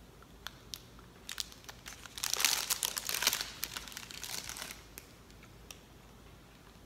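Snack bar wrapper crinkling and crumpling in the hands: a few scattered crackles, then a dense crinkling from about two to nearly five seconds in.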